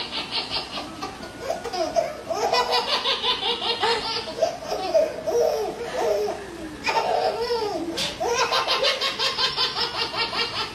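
A baby belly-laughing hard, in long bursts of quick, evenly repeated pulses, with rising and falling squeals in between.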